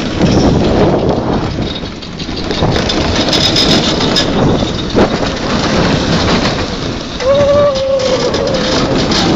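Roller coaster train running along its track: loud, continuous rumbling and rattling. About seven seconds in, a person gives a long, held shout lasting over a second.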